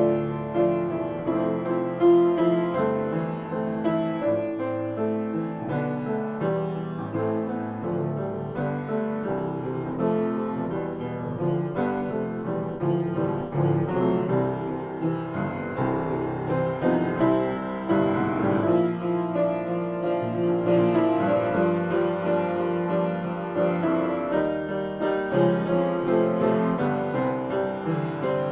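Solo upright piano improvisation: an unbroken stream of notes and chords, mostly in the middle and low registers.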